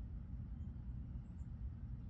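Outdoor ambience: a steady low rumble with a few faint, short, high chirps from small birds, about a half-second and a second and a half in.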